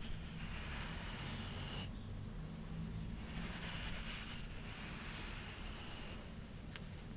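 Long hair being brushed or stroked close to the microphone: soft hissing strokes, each lasting a second or two, with a short click near the end and a faint steady hum underneath.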